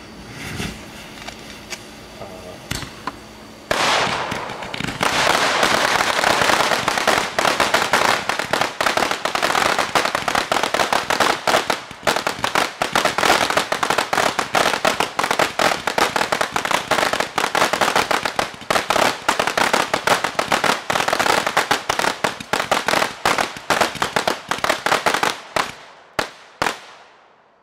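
A string of thirty Cosmo report fireworks on one fuse going off. First comes a few seconds of hissing with scattered pops, then about four seconds in a sudden, dense barrage of rapid loud bangs lasting some twenty seconds. The bangs thin out to a few last ones near the end.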